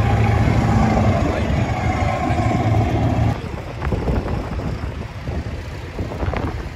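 Pickup trucks driving past. For the first three seconds a full-size pickup's engine runs with a loud, steady drone. It then drops away suddenly to a quieter engine rumble and wind on the microphone as a lowered single-cab pickup rolls by.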